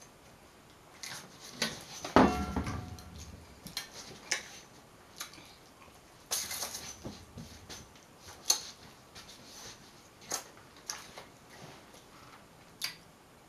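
Scattered clicks and knocks of food and a plate being handled at the table during a seafood-boil meal, with a louder thump about two seconds in.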